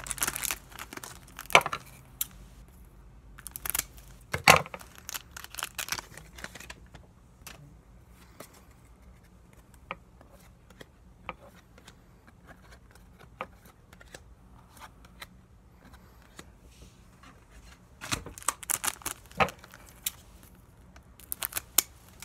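Pokémon trading cards handled by hand: scattered sharp flicks, rustles and crinkles as cards are slid and flipped, busiest in the first few seconds and again near the end, sparse in between.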